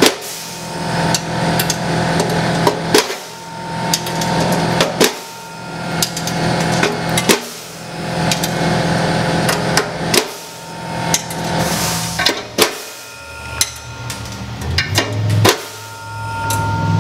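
Pistol-type pneumatic pop-rivet gun setting steel pop rivets one after another, about seven in quick succession. Each pull ends in a sharp snap as the rivet's mandrel breaks off, over a steady low hum.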